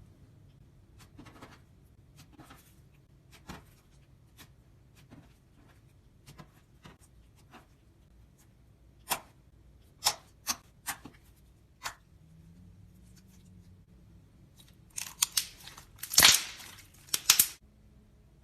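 Slime being handled, giving sharp clicks and pops: scattered at first, a few louder ones in the middle, then a quick run of loud crackles near the end.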